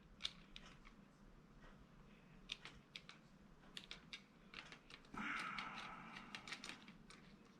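Faint, scattered small clicks and taps of a precision screwdriver and tools on the plastic Joy-Con parts while its small Phillips screws are being removed, with a brief soft rustle about five seconds in.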